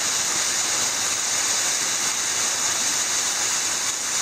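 A waterfall pouring into a rock plunge pool: a steady, even rush of falling and splashing water.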